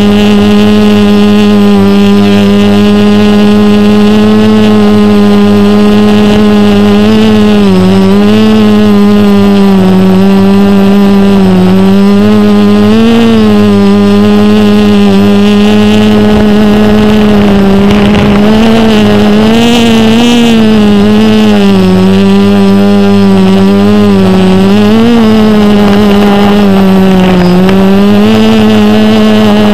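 Multirotor drone's electric motors and propellers humming loudly and steadily close to the onboard camera, the pitch dipping and rising briefly now and then as the motor speeds are adjusted in flight.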